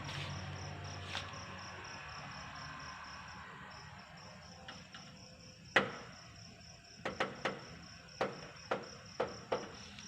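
A cricket chirping steadily at night, a high note repeating about five times a second. About halfway in a sharp knock sounds, the loudest thing here, followed by a run of lighter knocks or taps.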